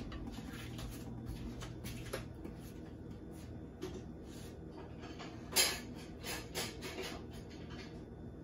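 Quiet kitchen room tone with a few light knocks and clicks, the loudest about five and a half seconds in, over a faint low hum.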